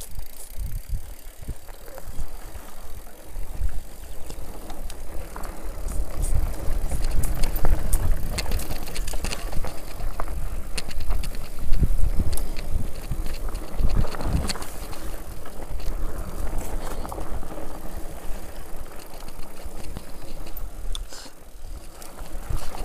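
Mountain bike descending a dirt singletrack: a continuous low rumble of the tyres on the trail, with frequent clicks and rattles from the bike over bumps, louder through the middle.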